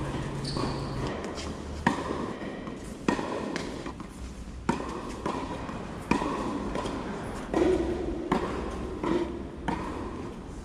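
Tennis rally: a tennis ball struck by rackets and bouncing on the court, a series of sharp impacts every second or so.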